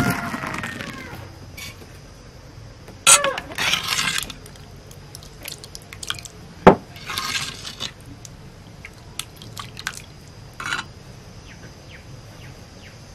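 Liquid splashing and dripping in short, scattered bursts as curry is ladled from a clay pot and water sits beaded on a banana leaf, with one sharp knock about halfway through.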